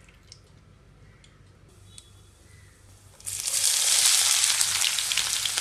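Chopped onions dropped into hot mustard oil in a non-stick pan: after a quiet stretch with a few faint clicks, a loud sizzle starts suddenly about three seconds in and keeps going as the onions begin to fry.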